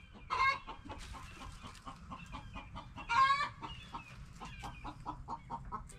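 A hen clucking: two louder calls, about half a second in and about three seconds in, with quieter short clucks in between.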